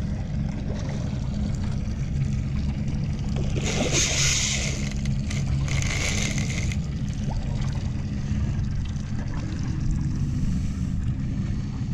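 Outboard motor idling steadily. Twice, about four and six seconds in, there is a short burst of splashing as a hooked cobia thrashes at the surface beside the boat.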